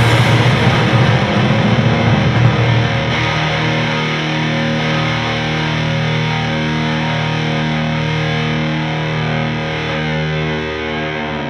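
Background music led by distorted electric guitar. It is dense and loud for the first few seconds, then settles into held chords, with notes sliding downward near the end.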